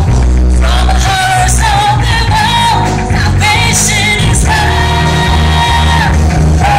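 Live pop band, keyboard, drums and electric guitar, playing behind a woman singing into a microphone, her held notes wavering with vibrato; heard from the audience in a reverberant hall.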